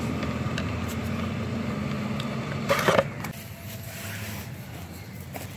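A steady low mechanical hum, with a brief loud noise just before three seconds in, after which the hum quietens.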